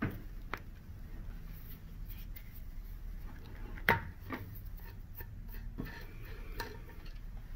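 Long Phillips screwdriver straining at the very tight factory screws of an espresso grinder's top burr holder plate: scattered metal clicks and clinks as the tip seats and bites in the screw heads, the loudest about four seconds in.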